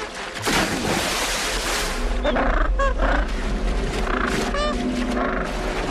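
A sea lion thrashing a penguin in the water: a loud splashing rush begins about half a second in and lasts about a second and a half. It is followed by a few short, high calls that rise and fall, over a steady low music drone.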